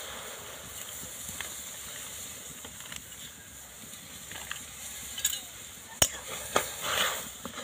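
A steady hiss as semolina goes into hot water in a karai (wok). About six seconds in, a spoon knocks and scrapes against the pan a few times as the stirring starts.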